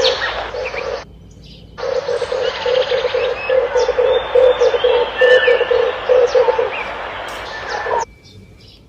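Red turtle dove cooing: a rolling run of low, rapidly repeated coos, with small birds chirping high over a steady hiss. The recording cuts out abruptly twice, about a second in (returning shortly after) and again near the end.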